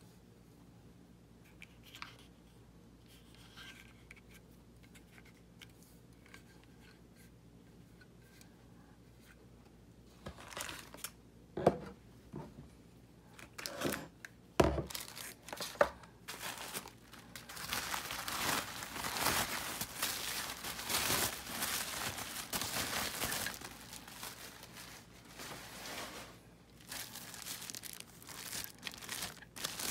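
Thin plastic packaging crinkling and rustling as a bagged tumbler is handled, for several seconds in the second half. Before it, after a quiet start, come a few sharp knocks of hard items being set down on a table.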